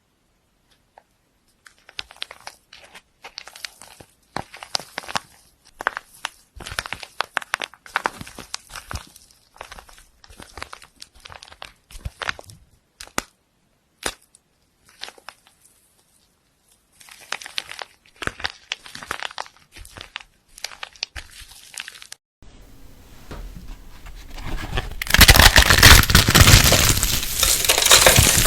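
Close-miked crackling, crinkling and tearing clicks in irregular clusters with short pauses, typical of crunchy slime being pressed and pulled. A little past twenty seconds in it cuts to a steady, sizzling hiss that swells loud near the end.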